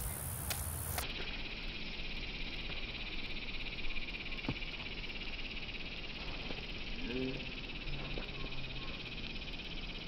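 Steady high-pitched buzzing chorus of insects, with a few faint knocks.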